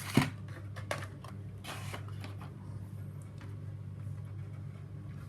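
Handling of carded Hot Wheels die-cast cars in their blister packaging: a sharp knock about a quarter second in, a few lighter clicks, and a brief rustle near two seconds. A steady low hum runs underneath.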